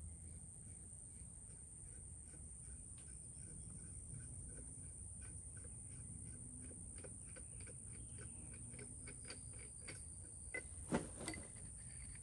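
Faint, irregular clicking of a ratchet wrench backing a nut off a VW Beetle rear suspension part, then a sharper metallic clank near the end. A steady high insect drone runs underneath.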